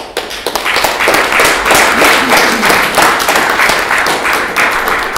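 Audience applauding: many hands clapping, building over the first second and tapering off near the end.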